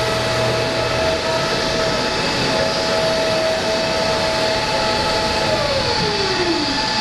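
Steady rushing jet-turbine noise with a high whine, as heard on an airliner apron. Near the end a second tone slides down in pitch.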